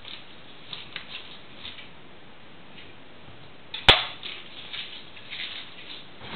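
Kitchen knife cutting a block of smoked cheese on a wooden chopping board: faint scrapes and light taps, with one sharp knock on the board about four seconds in.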